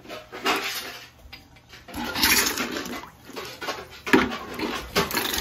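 Boiler heating water gushing unevenly out of a purge hose and splashing into a plastic bucket of dirty water, as a heating zone is purged of air.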